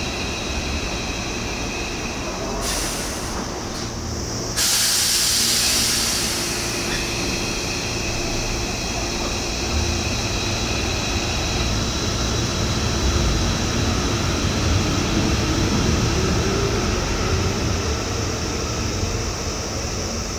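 Hankyu Railway electric commuter train at a station: a loud burst of air hiss about four seconds in, then the traction motors' whine rising slowly in pitch as the train gathers speed pulling away.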